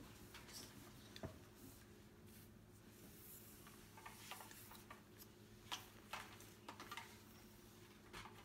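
Near silence: faint scattered ticks and light rustles of photographs being handled and laid on a table, over a low steady room hum.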